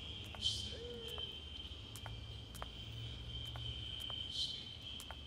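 Crickets trilling steadily in a high, even tone over a low background rumble, swelling briefly twice.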